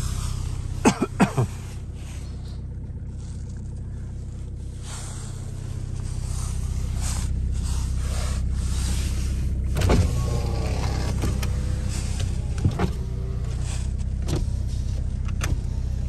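Toyota 2C-T 2.0 L four-cylinder turbo-diesel idling steadily, heard inside the car's cabin. A few sharp clicks and knocks come through, a cluster about a second in and single ones near the middle and later.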